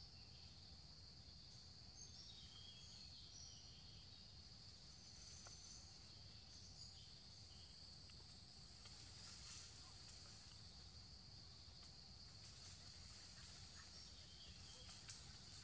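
Faint forest ambience: insects keeping up a steady high-pitched drone, with a few short faint chirps in the first few seconds and a low rumble underneath.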